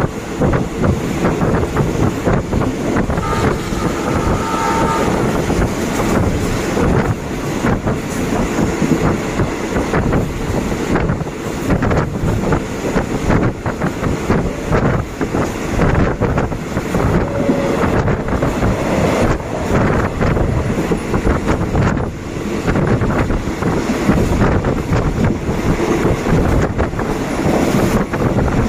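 Passenger train running along the track, heard from inside a carriage: a steady rumble of wheels on rail, with wind buffeting the microphone.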